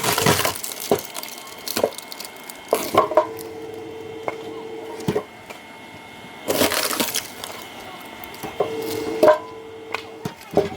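Oak firewood being split, the wood cracking and splintering in repeated sharp bursts. The bursts come near the start, about three seconds in, around seven seconds and about nine seconds. After two of them a steady hum holds for a couple of seconds.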